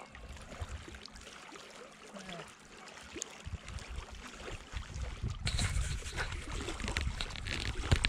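Wind buffeting the microphone, a low rumble starting about three and a half seconds in and growing louder, over small waves lapping at a rocky shore, with light ticking and handling noise.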